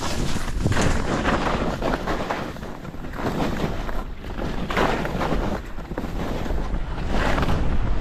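Wind buffeting the action camera's microphone while skiing downhill, a heavy low rumble, with the skis hissing and scraping over the snow. The rush swells and eases in surges every second or two as the skier turns.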